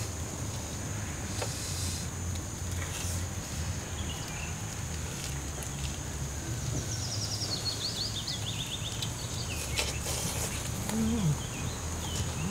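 Outdoor ambience: insects droning steadily at a high pitch over a low rumble. About seven seconds in, a bird sings a descending run of a dozen or so quick notes.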